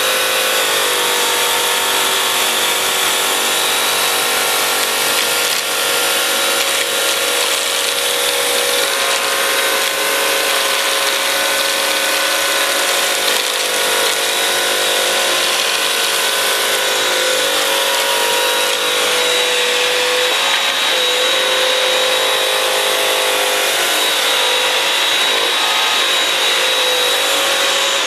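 Bissell CrossWave Advanced wet-dry floor cleaner running steadily: suction motor and spinning brush roll making a loud, even hum with a high whine as it picks up a spill of cornflakes and milk from a hard floor.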